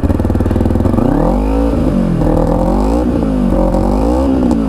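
Kawasaki Ninja 250R parallel-twin engine on its stock exhaust, idling and then lightly revved three times, the pitch rising and falling with each blip.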